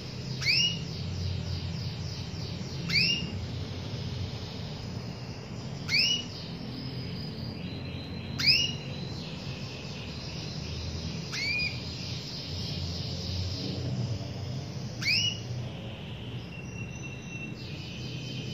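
Canary giving loud, sharply rising whistled call notes about every three seconds, with faint twittering trills between them and a short held note near the end, over a steady low hum.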